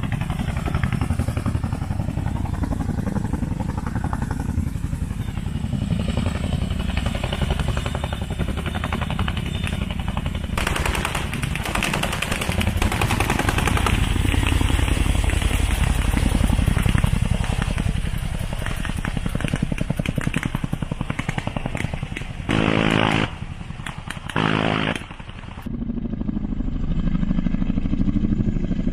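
MH-47G Chinook tandem-rotor helicopter's rotors beating and engines running, loud and continuous with a rapid chopping pulse. The sound drops and shifts abruptly twice near the end.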